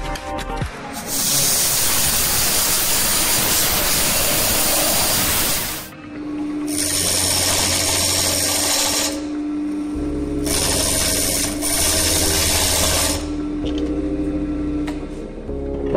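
Wood lathe spinning a moist olive-root hollow form while a turning tool cuts at its opening, in three long spells of hissing cut separated by the steady hum of the running lathe.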